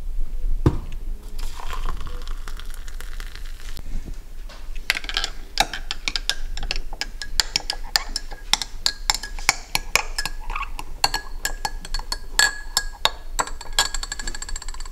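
Hot water poured from an electric kettle into a ceramic mug, then a metal teaspoon stirring coffee, clinking rapidly and ringing against the sides of the cup.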